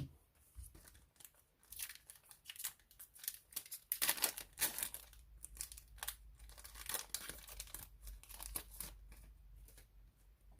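A plastic trading-card pack wrapper being crinkled and torn open by hand: an irregular run of sharp crackles, busiest about four seconds in and tapering off near the end.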